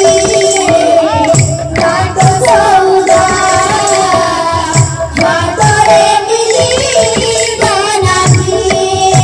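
Live kirtan devotional music: a woman singing through a microphone over a double-headed barrel drum (khol/mridanga) and small hand cymbals keeping a steady beat.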